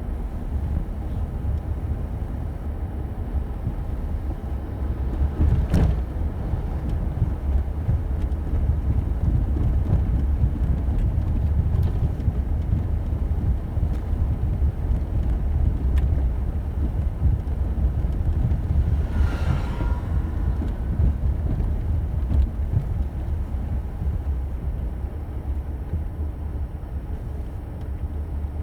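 Car driving at low speed, heard from inside the cabin: a steady low rumble of engine and tyres on the road, with one sharp knock and, later, a brief scraping squeak.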